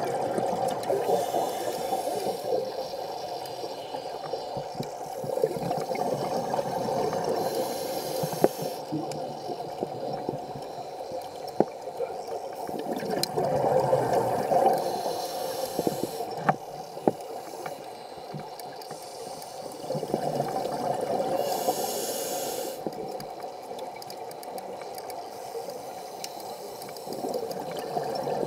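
Scuba diver breathing on a regulator, heard underwater: a few slow breaths, each a hissing inhale followed by a bubbling exhale, with scattered sharp clicks.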